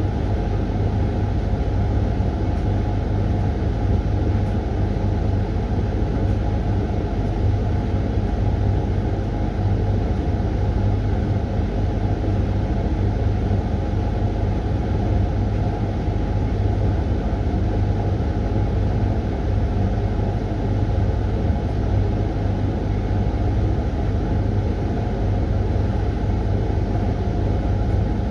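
Hoover tumble dryer running a Refresh programme: a steady low motor hum with the whoosh of the fan and turning drum, unchanging throughout.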